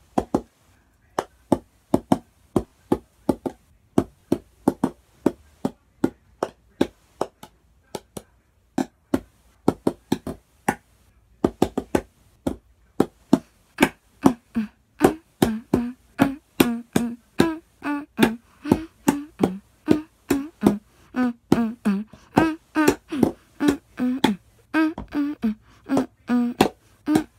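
Upturned clear plastic cups on carpet struck by hand as cup drums: a steady beat of sharp, hollow taps. After a short pause about twelve seconds in, the pattern turns faster and busier, with a deeper thump on many hits.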